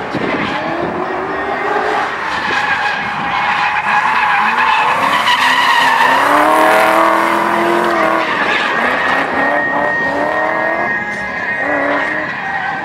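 A drift car's engine revving hard and rising and falling in pitch while its rear tyres squeal and skid in a sustained slide. It is loudest around the middle, with a thin high squeal holding in the latter part.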